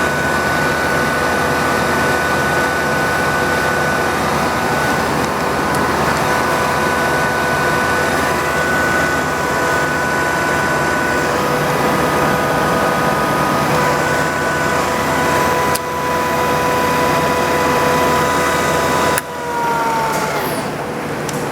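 Sharp LMV variable-speed vertical milling machine running under power, a steady mechanical hum with a high whine of several tones. About 19 seconds in, the level drops sharply and the whine falls in pitch as the spindle slows down.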